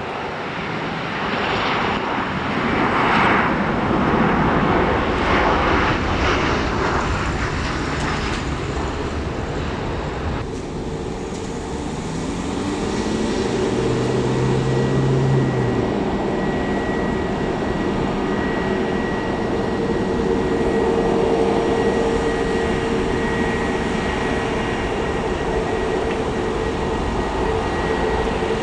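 Airliner engines running: a rushing noise that swells and fades for the first ten seconds or so, then after an abrupt change a steadier engine sound with a held whine.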